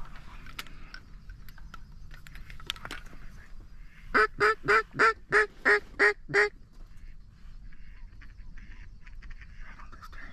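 Mallard duck call blown by a hunter to draw in approaching ducks: a quick, even series of eight loud quacks, about three a second. Softer, shorter notes follow.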